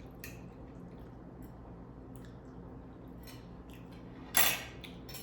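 Cutlery on a plate during a meal: a few light clicks of a utensil against the dish, and one louder, short scraping sound a little over four seconds in.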